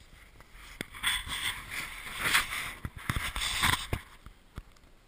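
Camera being picked up off the snow and handled: crunching snow, rustling and knocks against the microphone for about three seconds, then it settles.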